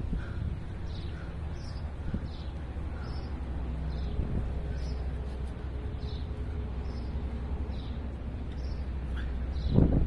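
A bird calling over and over with short high chirps, about one and a half a second, over a steady low background rumble.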